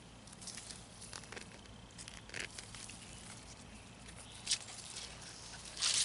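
Digging elephant garlic out of damp garden soil: scattered scrapes, crunches and soil tearing, with sharper scrapes about four and a half seconds in and near the end.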